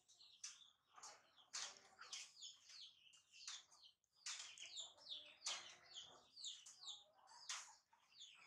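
Repeated high-pitched chirping calls, many short calls in quick succession with brief pauses.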